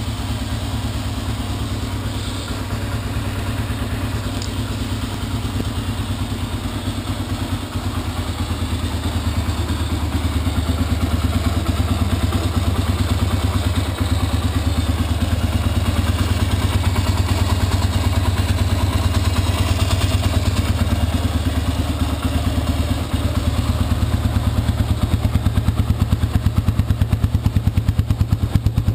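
2003 Honda CRF150F's single-cylinder four-stroke engine idling steadily through its stock exhaust, a little louder from about ten seconds in.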